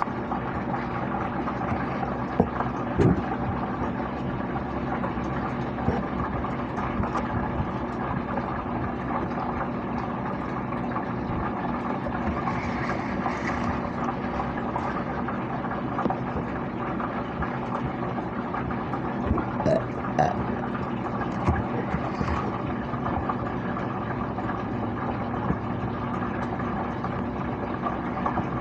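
A person gulping down a bottle of soda in one long go, swallow after swallow, over a steady hum.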